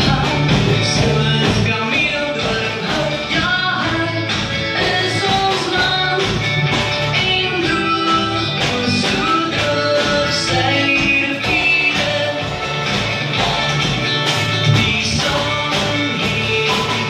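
A child playing a drum kit along to a recorded rock song with singing and guitar, drum hits and cymbals over the backing track.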